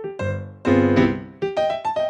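Piano being played: two full chords struck, then a quicker line of single notes from about two-thirds of the way in.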